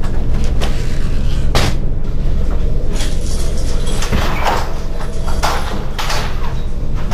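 A few sharp clunks and knocks as a flat's front door is handled and opened, over a steady low rumble.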